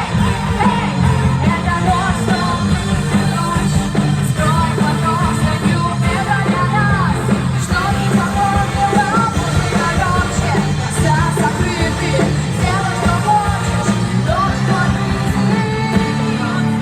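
Vocal-instrumental band playing an upbeat pop-rock song, with singing over a steady bass line.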